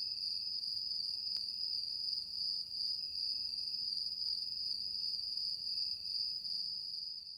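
Steady high-pitched insect trill, unbroken throughout.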